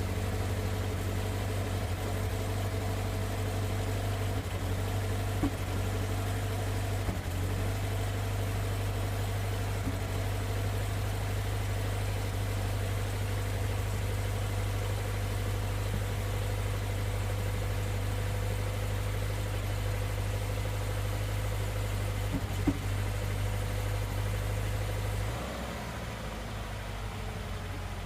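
Subaru FA20 flat-four boxer engine of an FR-S/BRZ/GT86 idling on a cold start, with a knocking sound that the owner hears as a cold-start engine knock. A few sharp ticks stand out, and the idle drops and quietens near the end.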